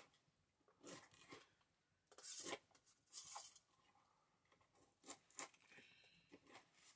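Long-bladed knife cutting through cabbage on a sack, a faint series of irregular crisp crunching strokes, some single and some in quick pairs.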